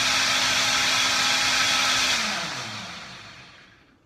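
A high-speed blender runs at full speed, blending a sauce, then is switched off about two seconds in, its motor winding down with a falling pitch and fading out.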